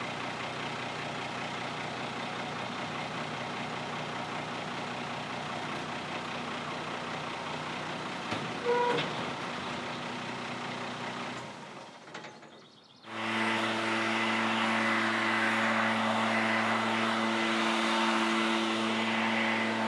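Bandit 90XL brush chipper's diesel engine running steadily. About 11 s in the sound fades and drops out briefly, then comes back at about 13 s louder and fuller, the engine running at higher speed.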